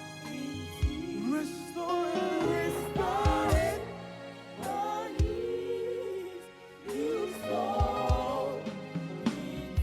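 Live gospel music: a singing voice wavering in pitch over a held accompaniment, with short low thumps now and then.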